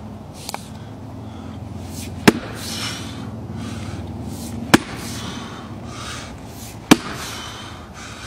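Axe chopping into the end grain of a large log round: three sharp strikes, roughly two and a half seconds apart.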